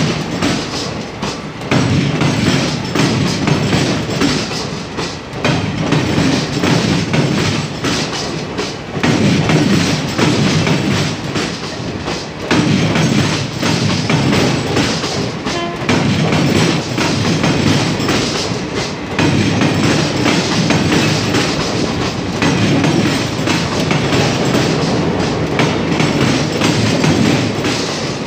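Indian Railways passenger coaches running over a crossover: a loud, continuous clatter of steel wheels banging over the rail joints and points. The heavier rumble rises and falls every few seconds as the coaches pass.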